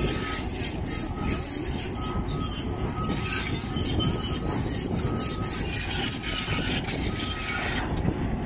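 Heavy tracked earthmoving machinery running: a steady diesel rumble from the excavator and pipelayer sidebooms, with a machine's warning alarm beeping about once a second.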